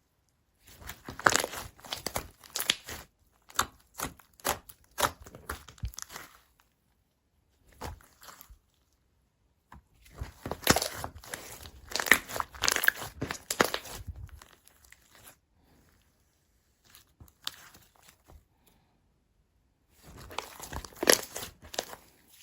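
Slime being squeezed and stretched by hand, giving rapid crackling, crinkling pops in three runs with short pauses between.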